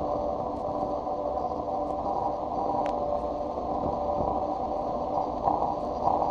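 Lowercase ambient musique concrète: a steady, dense drone of dull noise with several held tones layered through it, and a faint click about halfway through.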